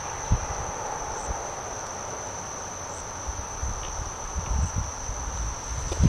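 Insects chirring in one steady high-pitched drone, with a few soft low footfalls on the garden ground near the end.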